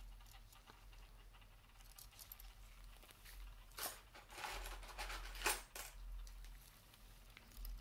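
Faint handling of small 3D-printed plastic models in gloved hands: soft rustling with two light clicks, about four and five and a half seconds in.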